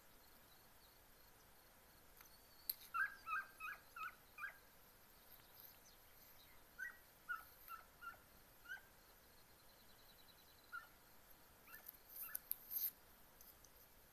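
Segugio italiano hound pups giving tongue on a scent trail: short, high yelps in three bouts of four to six.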